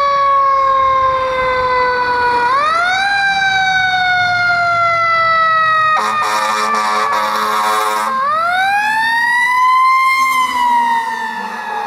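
Fire engine siren wailing in sweeps that rise quickly and fall slowly, with a short burst of air horn for about two seconds in the middle. The siren rises again and is loudest about ten seconds in as the truck drives past, then falls away.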